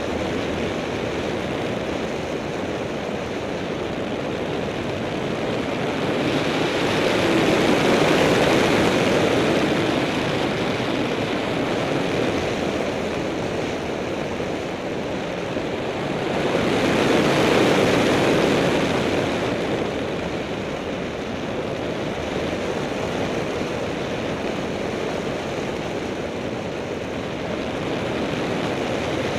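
Small high-wing propeller plane in flight: a steady rush of wind over an outside-mounted camera with the engine and propeller droning beneath. The rush swells twice, about a quarter of the way in and again just past halfway.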